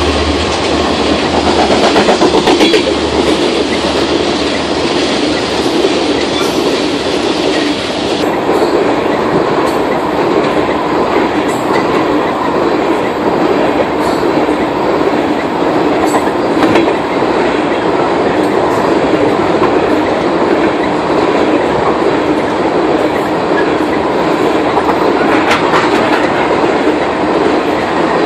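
Crude-oil tank cars of a freight train rolling past close by: a loud, steady noise of steel wheels running on the rails, with fast, continuous clicking.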